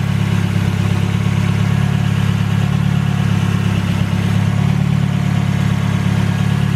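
1995 Mazda Miata's 1.8-litre four-cylinder engine idling steadily, left running with the heater on full to bleed air out of the freshly filled cooling system.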